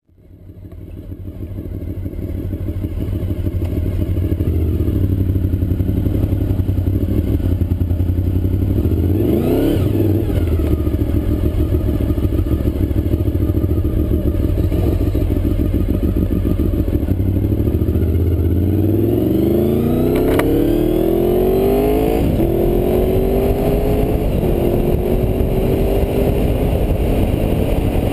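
Honda VFR motorcycle's V4 engine running, picked up through a GoPro in its open, non-waterproof case backing. The sound builds over the first few seconds and then holds steady, with a quick rise and fall in pitch near ten seconds. About two-thirds in, the engine pitch climbs, drops abruptly and climbs again, as the bike accelerates through a gear change.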